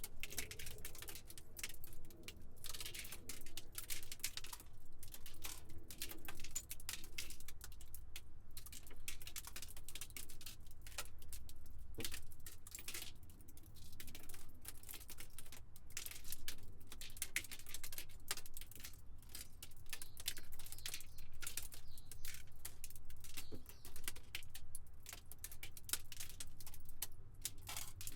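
Glass debris: many small shards clinking and skittering in a dense, continuous patter of tiny clicks, with no single large smash.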